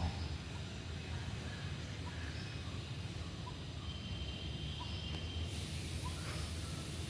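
Steady low outdoor background rumble, with faint short bird peeps repeating about once a second.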